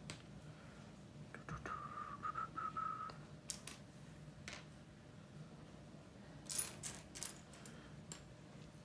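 Loose LEGO plastic pieces clicking and clattering as they are picked out of a pile and set down on a wooden table: a few scattered sharp clicks, then a quick cluster of them a little after the middle.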